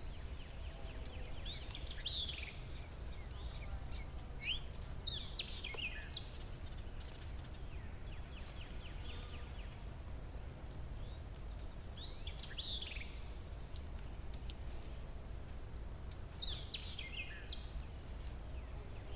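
Forest ambience: a bird calls in short bursts of quick downward-sweeping notes, four times, over a steady low rumble and a constant high-pitched hiss.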